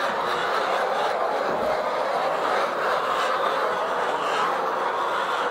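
A flock of laying hens clucking together in a steady, continuous chatter.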